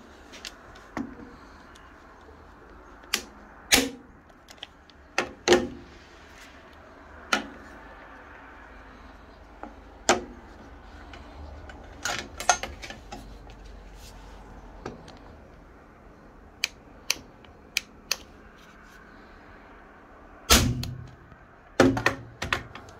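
Staplers firing staples into a small wood block: a string of sharp, separate snaps and clacks with pauses between them, and two louder, heavier shots near the end from a Titan electric stapler.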